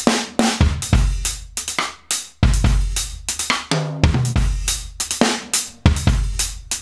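Recorded live acoustic drum-kit loop at 140 bpm playing back, a steady groove of kick, snare, hi-hats and cymbals with sharp, closely spaced hits.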